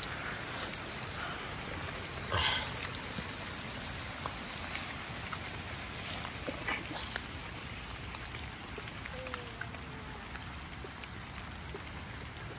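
Steady rain falling, an even hiss with scattered drip ticks, and one brief louder sound about two seconds in.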